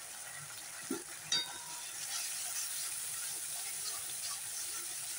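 Tomato masala and spice powders sizzling in oil in a metal kadhai, a steady frying hiss. There is a sharp metallic clink about a second and a half in, and later the spatula scrapes and ticks against the pan as the masala is stirred.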